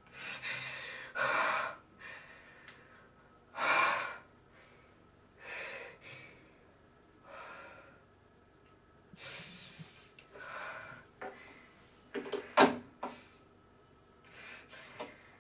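A woman breathing in gasps, one breath every second or two, with a sharper cluster of gasps about three-quarters of the way through.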